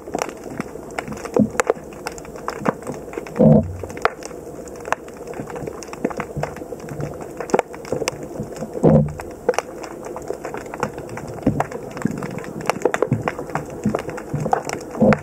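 Underwater sound in a shallow harbour: steady scattered clicking and crackling, with a low rushing burst of water noise about every five or six seconds.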